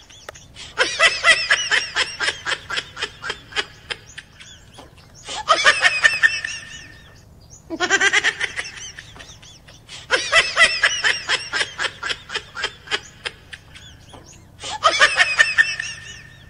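Laughter, a rapid string of 'ha-ha-ha' pulses, coming in five separate bouts a few seconds apart. The bouts look alike, as if the same laugh recording is played over and over.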